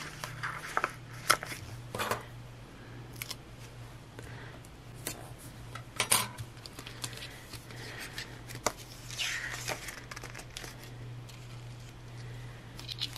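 Paper planner stickers being peeled from their backing and sticker-book sheets being handled and leafed through: scattered small paper clicks and crinkles, with a soft rustle about nine seconds in. A steady low hum runs underneath.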